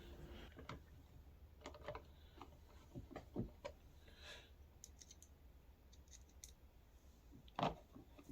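Faint, scattered clicks and taps of screws being driven by screwdriver into a plastic hubcap on a ride-on toy's wheel, with a louder knock near the end.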